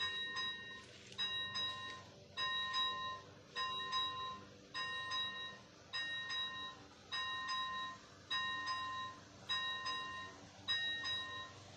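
ZV-01 electronic warning bell of a Czech level-crossing signal ringing, one ding about every 1.2 seconds, each fading out before the next. It sounds while the red lights flash, warning that a train is approaching.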